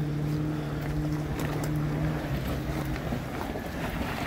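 Off-road 4x4 engine running with a steady low hum that partly drops away about two seconds in, over wind buffeting the microphone.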